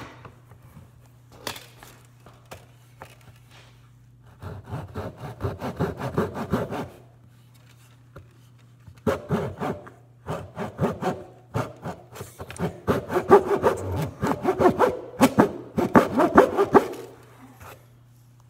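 Handsaw cutting a half-lap joint in wooden framing lumber: quick back-and-forth saw strokes in a short run of a few seconds, then, after a pause, a longer run. A few light knocks come before the sawing starts.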